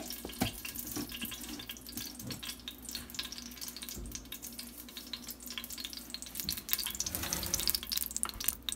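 Coconut oil heating in an Instant Pot's stainless steel inner pot on sauté mode, crackling and sizzling with dense fine pops, a little louder near the end.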